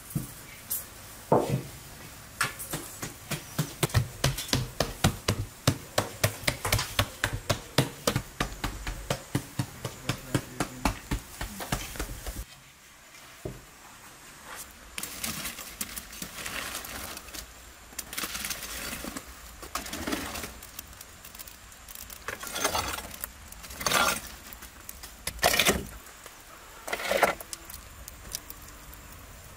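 Metal baking trays being handled: a quick run of light metallic taps and clinks, several a second, for about twelve seconds. Then a few separate, louder noises spaced a second or two apart.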